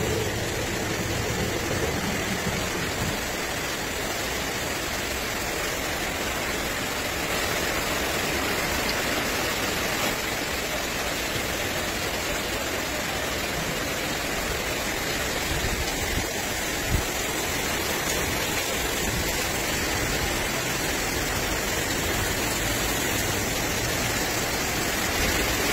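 Heavy downpour over a flooded street: a steady, dense rush of rain and water.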